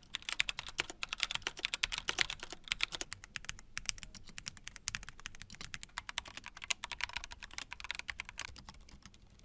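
Fast typing on a Gamakay TK75 mechanical keyboard fitted with silent switches: a rapid, soft patter of keystrokes that thins out and gets quieter near the end.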